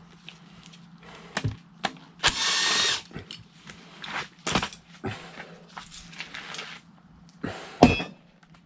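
A power tool runs in one short burst of under a second, about two seconds in, unfastening a bolt on an engine bracket. Sharp metallic knocks and clinks of tools and parts come before and after it, the loudest near the end.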